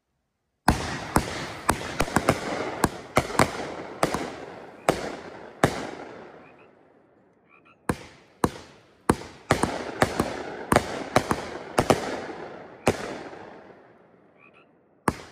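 World Class "Italian Stallion" 500-gram firework cake firing. Two volleys of sharp shots start about a second in, about ten shots each at roughly two a second, and each volley trails off in a long echoing tail before the next begins.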